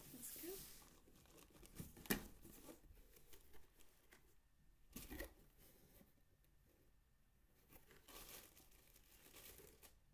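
Cardboard shipping box being opened: packing tape tearing and the cardboard flaps being pulled back and rustling, in several short, faint bursts.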